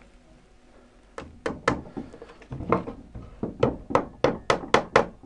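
Hammer tapping a small panel pin into the timber of a box sash window frame to hold the top sash in place: a run of a dozen or more sharp taps starting about a second in, coming quicker and louder toward the end.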